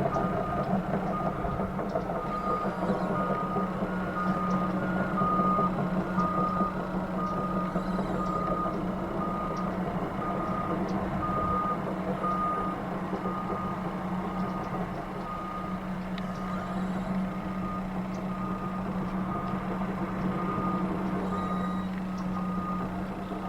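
Reversing alarm of heavy construction or mining equipment beeping steadily, a little under two beeps a second, over a steady low engine drone. A second, slightly higher-pitched reversing alarm beeps alongside it for a few seconds.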